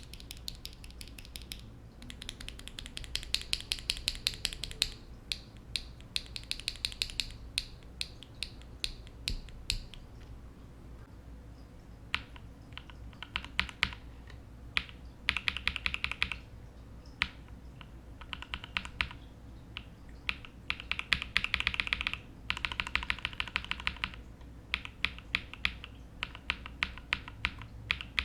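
Typing on a mechanical keyboard with linear switches, comparing lubed and filmed KTT Rose switches with NovelKeys Cream switches. Quick runs of keystroke clacks come in bursts of one to two seconds, with brief pauses between them.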